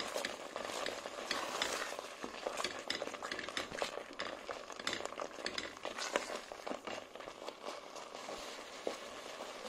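Wooden spoon stirring and scraping thick quince paste around a cooking pot, with many irregular soft clicks and scrapes. The paste is being cooked down over low heat, its syrup already gone.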